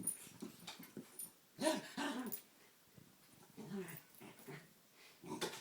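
Dogs vocalising while they play-fight: short growls and whines in several bursts, with quiet gaps between.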